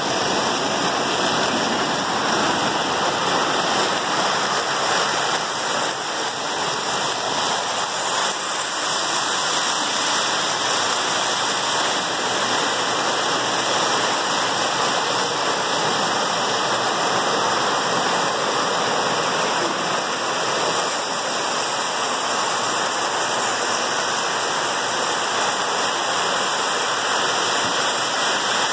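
Several Lionel O-gauge toy trains running at once on three-rail track, making a steady, even rushing noise of wheels and motors that carries on without a break.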